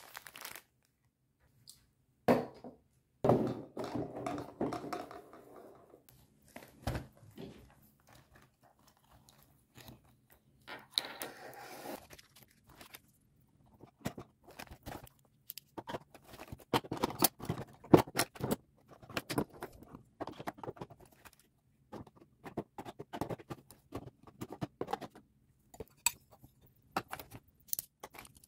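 Small items being handled and set down on a desk: irregular taps, clicks and knocks, with rustling now and then.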